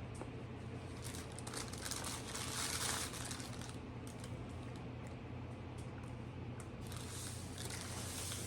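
Paper wrapper of a snack wrap crinkling in the hand while it is being eaten, in two stretches, one about a second in and another near the end, over a low steady hum.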